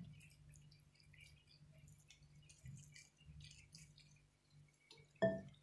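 Gloved hands pulling boiled chicken meat apart and off the bones: faint, soft wet squishing and tearing over a low steady hum. A single short knock sounds near the end.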